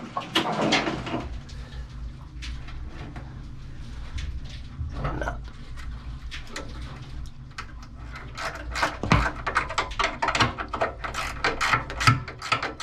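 Screwdriver tightening the screws of a plastic cable retainer over the AC cable entry of a Victron Phoenix inverter: small scrapes and a dense run of quick clicks that grows thicker in the last few seconds, over a low steady hum.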